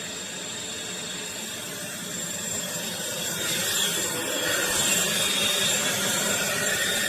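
Eureka Blaze cordless stick vacuum running, a steady whir with a high whine, growing louder about halfway through.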